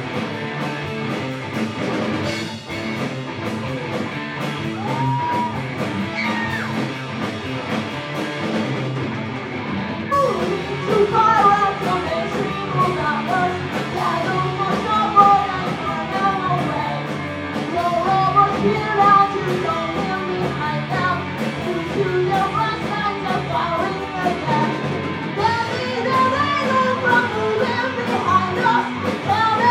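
Live rock band playing a song: guitar, bass and drum kit, with a vocalist coming in singing about ten seconds in and the cymbals getting heavier near the end.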